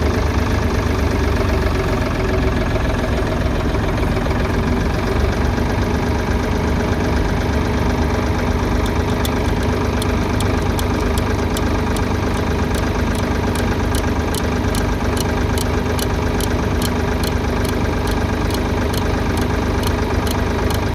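Ford 3000 tractor engine running steadily at an even speed. From about halfway through, a light, regular ticking repeats two or three times a second over the engine.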